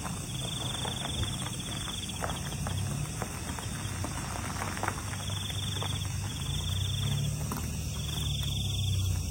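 Low rumble of a car driving, heard from inside the cabin, with insects trilling outside in high, repeated bursts of about a second each, coming and going. A few faint clicks.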